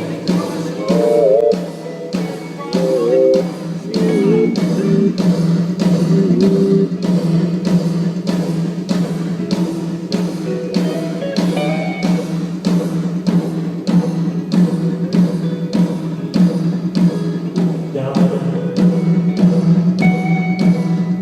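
A live band playing during a sound check: a drum kit keeping a steady beat of about two hits a second under guitar, with bending guitar notes in the first several seconds.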